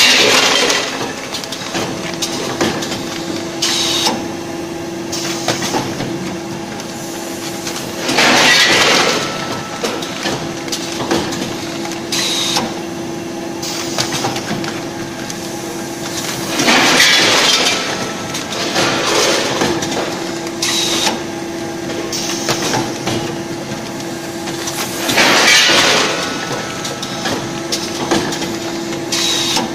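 Automatic bag-opening, filling and sealing machine running through its cycle: a steady hum with clicking and clacking from its pneumatic grippers and cylinders. About every eight and a half seconds comes a loud, hissing rush about a second long, four times in all.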